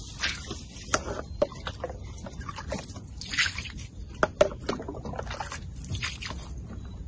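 Water ladled from a wooden bucket and splashed onto granite paving in several irregular splashes, with a few sharp knocks in between.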